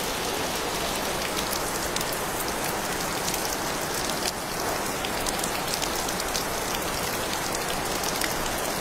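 Steady rain falling: a constant hiss with scattered sharp ticks of drops striking.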